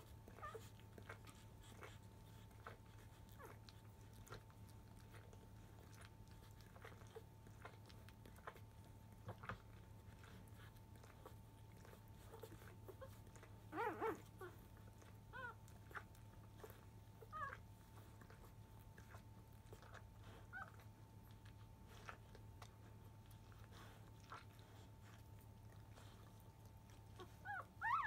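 Newborn Labrador retriever puppies suckling, with faint wet smacking clicks throughout and brief high squeaks. A short burst of squeals comes about halfway through, and more squeaking near the end.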